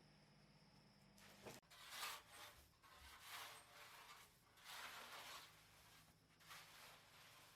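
Faint, soft scraping strokes, about four of them, over a faint steady low hum.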